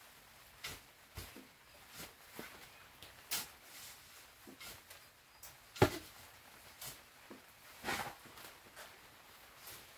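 Shovel digging into and turning loose, dark soil in a raised bed, mixing in amendment: irregular scraping strokes about once a second, with one sharper knock about six seconds in and a longer scrape soon after.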